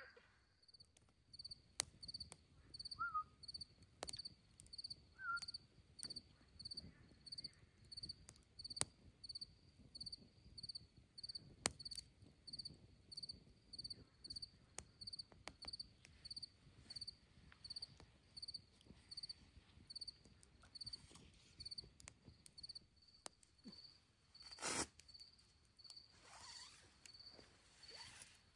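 Cricket chirping faintly and steadily, a little more than one chirp a second, with scattered faint clicks and one louder snap near the end.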